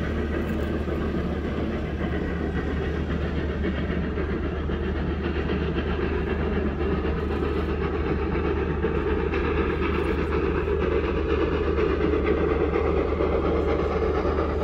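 Steam train running along the line: a steady rumble that grows a little louder about two-thirds of the way through.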